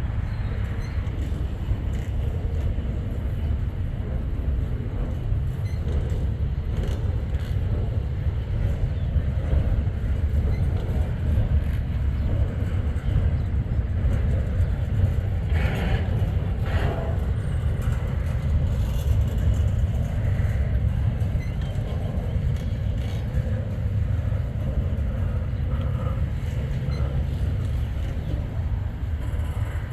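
Freight train rolling past: a steady low rumble of the cars on the rails.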